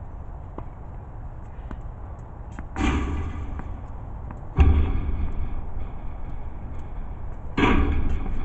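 Three loud bumps with rustling on the camera's microphone, about three seconds in, near the middle and near the end, as someone comes right up to the camera and handles it. Faint sharp clicks of tennis balls being struck can be heard in the background.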